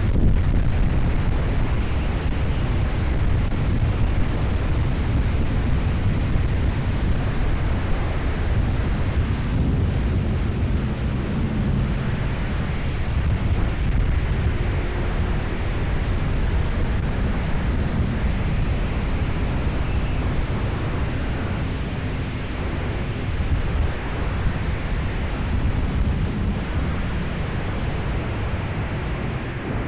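Heavy wind buffeting on an action camera's built-in microphone on a moving motorcycle, a steady low rumble, with the 1997 Honda VFR750F's V4 engine running faintly underneath.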